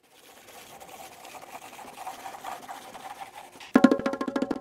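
Pencil-scribbling sound effect for a sketched logo: a scratchy shading rasp, then about three quarters of the way in a louder run of rapid strokes, about ten a second, with a buzzy pitch.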